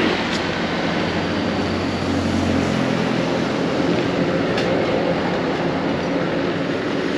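Steady, loud rumble and hiss of passing vehicles, with a low engine hum that fades out about two and a half seconds in.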